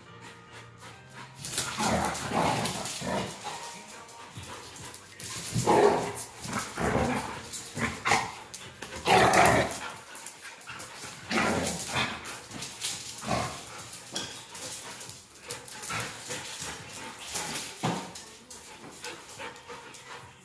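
A Beauceron and a Belgian Tervuren barking at each other in rough play, in many short loud bursts that start about a second and a half in.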